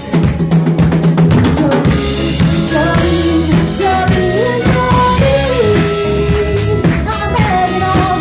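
Live band playing an instrumental passage, the drum kit keeping a steady beat on snare and bass drum under a lead line that slides between notes.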